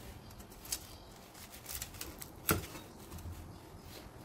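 Knife cutting cabbage on a wooden cutting board: a few scattered crunches and knocks of the blade, the sharpest about two and a half seconds in.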